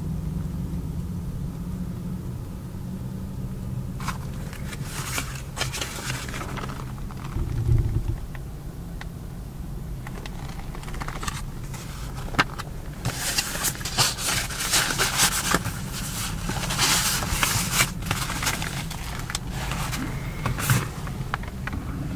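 Paper pages of an owner's manual booklet being turned and rustled in several bursts, over a steady low hum, with one dull thump about eight seconds in.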